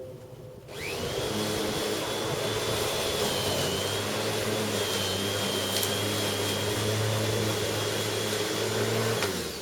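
Corded Bosch Rotak 34 electric rotary lawnmower switched on: the motor and blade spin up with a quick rising whine about a second in, run steadily with a high whine over a low hum, and cut off near the end.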